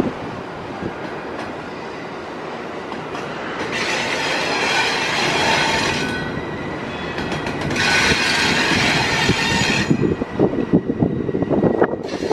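CSX double-stack container freight train rolling past, its wheels and cars rumbling steadily on the rails. Two stretches of louder high-pitched hissing wheel noise come about four seconds in and about eight seconds in. The sound turns rougher and more uneven near the end.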